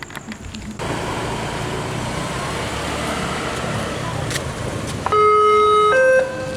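A train passing over a level crossing with a steady rumble that starts about a second in, then a single loud horn blast of about a second near the end, followed by quieter tones.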